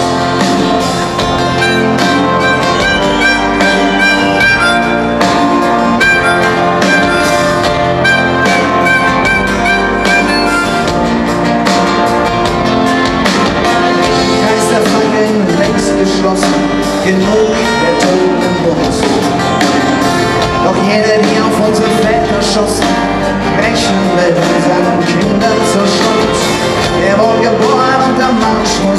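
Live band playing a song: strummed acoustic guitars over drums, loud and steady throughout.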